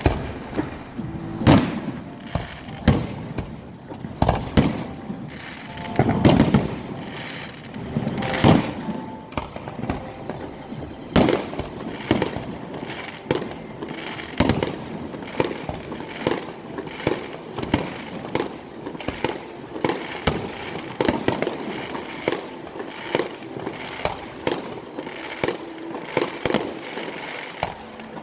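Fireworks going off: a steady, irregular series of sharp bangs, about one or two a second, some louder than others, with a rumble between them.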